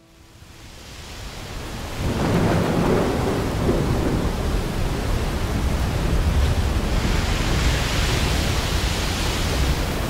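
Storm noise of a strong shamal wind: a loud, steady rushing with a deep rumble underneath. It swells up over the first two seconds, then holds.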